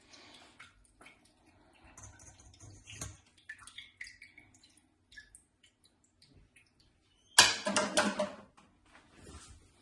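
Scattered small clicks and liquid sounds of juice and kitchen containers being handled. About seven and a half seconds in there is a louder, noisy rush lasting about a second.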